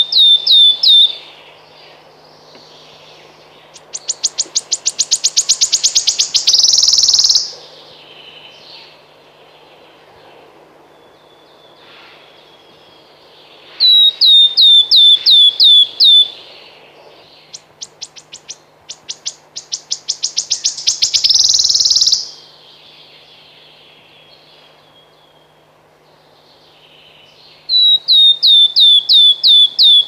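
Male wood warbler singing. The song alternates between a run of short, downslurred piping notes and a series of ticking notes that speed up into a shivering trill. The piping run comes three times and the trill twice, about every 14 seconds.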